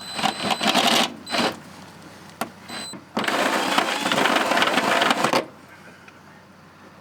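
Black and Decker power drill cutting a 26 mm hole through the van's sheet-metal floor. It runs in bursts: about a second with a high motor whine, a couple of short stabs, then a steady two-second cut that stops near the end, leaving a smooth hole with no ragged edges.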